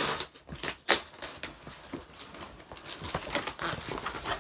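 Handling of a cardboard delivery box and its packaging: scattered taps, knocks and crinkling.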